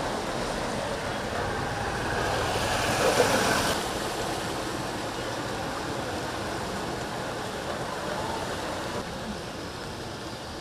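Flood water sloshing and splashing along a waterlogged street as vehicles wade through it, with a louder surge of splashing about three seconds in.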